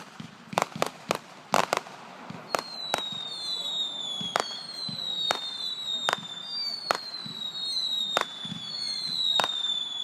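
Fireworks: a rapid run of sharp bangs, then from about two and a half seconds in, a string of whistling shells, each whistle sliding down in pitch over about a second, with single bangs going off between them.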